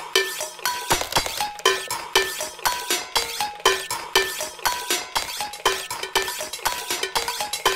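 Metal pots and pans clanging in a quick, rhythmic run, each strike ringing briefly at its own pitch.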